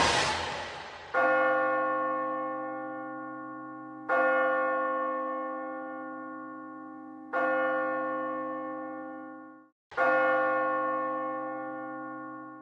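A large bell tolling four slow strokes, each ringing out and fading before the next. A louder noisy sound dies away in the first second.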